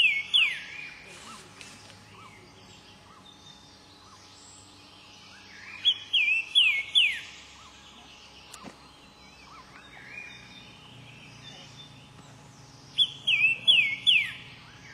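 A songbird repeating a short song of four or five loud, clear, falling notes, about one second long, three times roughly seven seconds apart, with fainter calls of other birds between the songs.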